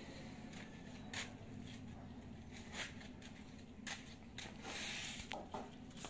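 Faint handling noise: a few light ticks and knocks spaced irregularly over a low steady hum, and a short rustle about two-thirds of the way through as the phone is reached for and picked up.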